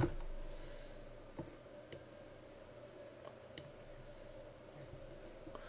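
A few scattered clicks of a computer mouse, the sharpest right at the start, over a faint steady hum.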